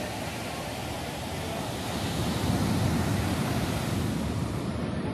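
Ocean surf: small waves breaking and washing up the sand, a steady rushing hiss of water that swells about two seconds in.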